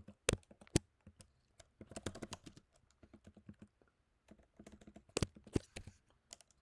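Typing on a computer keyboard: quick runs of key clicks, with a few louder single keystrokes near the start and again near the end.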